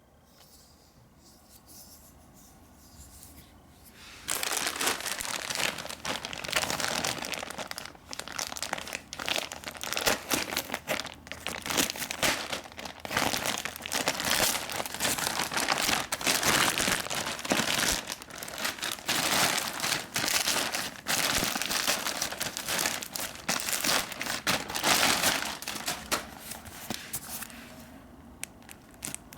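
Packaging being unwrapped by hand: dense crinkling and crumpling of wrapping that starts about four seconds in and dies down near the end.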